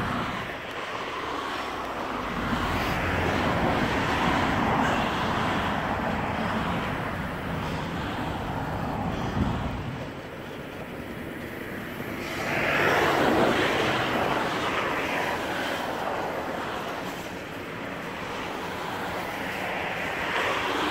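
Even rushing rumble of an approaching Norfolk Southern diesel freight locomotive, mixed with wind on the microphone, swelling and fading a few times.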